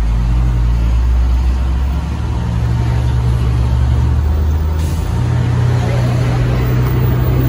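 Tour vehicle's engine running steadily as it climbs a hillside road, heard from on board with road noise around it. The engine note steps in pitch about two seconds in and again about five seconds in.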